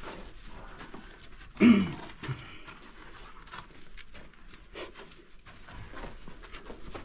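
A dog panting and its paws scrabbling over sandy rock as it climbs through a cave opening, with a short, loud cry falling in pitch about a second and a half in.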